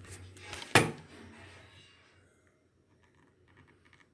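Winchester Model 12 16-gauge pump shotgun's slide action being worked: a sliding rasp and one sharp metal clack under a second in, then a few faint clicks near the end.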